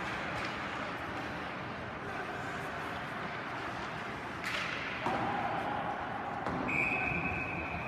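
Ice hockey rink ambience of skates and sticks on the ice, with a sharp crack of an impact about halfway through. Near the end comes a steady, high referee's whistle, stopping play.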